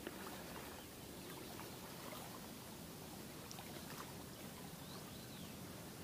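Quiet waterside ambience: a soft steady hiss of water, with a few faint light ticks and a couple of faint high chirps.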